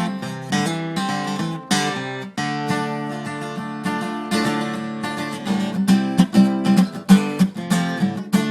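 K. Yairi DY91CK acoustic guitar played in D minor, chords strummed and left ringing, with a run of quicker, sharper picked notes near the end.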